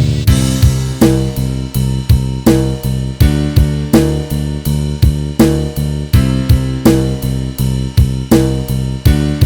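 Pop-rock band music: a drum kit keeps a steady beat with hi-hat and snare under sustained low bass notes.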